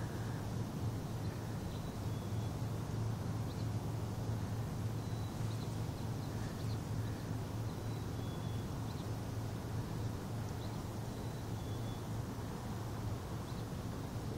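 Outdoor ambience: a steady low hum with faint, short, high-pitched bird chirps scattered throughout.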